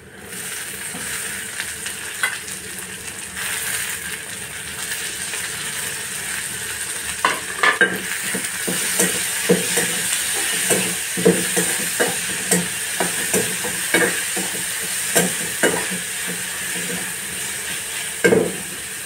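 Chopped tomatoes hitting hot oil in a metal kadai with a sudden sizzle, settling into a steady frying hiss. From about seven seconds in, a spatula scrapes and knocks against the kadai about once a second as the tomatoes, onions and chillies are stirred.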